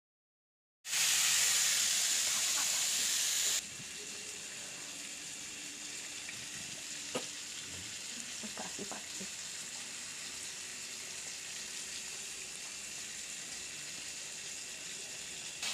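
Tandoori-marinated chicken leg pieces sizzling in hot oil and ghee in a frying pan: loud sizzling for about three seconds, then, after a sudden drop, a quieter steady sizzle with a few light clicks.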